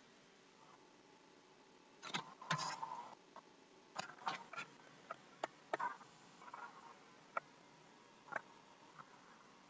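Faint, sharp clicks and taps at irregular intervals, with a denser cluster about two seconds in.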